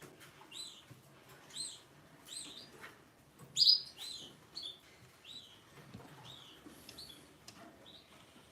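A bird chirping: short chirps that rise and fall, repeated about once a second, one louder than the rest about halfway through.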